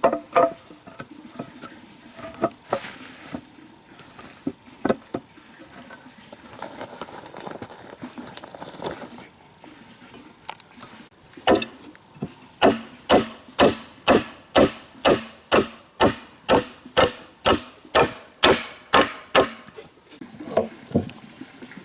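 A hand tool striking wood. Scattered knocks come first, then about halfway through a steady run of sharp blows, roughly two a second, lasting around eight seconds.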